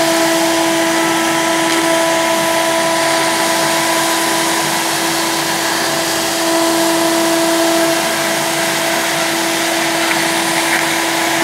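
Vacuum cleaner running steadily, a rush of air with a constant whine, as it sucks loose model railway ballast up through a 3D-printed ballast vacuum nozzle and hose run along the track.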